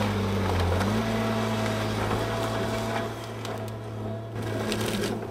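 Tigercat H855C harvester running at work, its engine and hydraulics giving a steady low hum. The engine note dips and comes back up about a second in, and the sound eases off a little in the second half.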